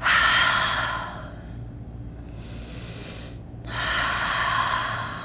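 A woman breathing deeply and audibly while holding a yoga forward fold. A strong breath comes at the start, a faint one in the middle, and another strong breath near the end.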